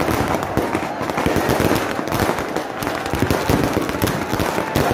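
Fireworks and firecrackers going off in a dense, unbroken run of rapid crackling pops.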